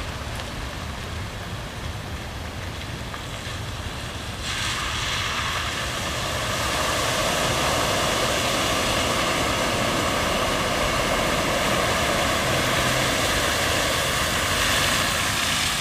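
Steady rush of heavy rain and wind over a low rumble, getting louder and brighter about four and a half seconds in.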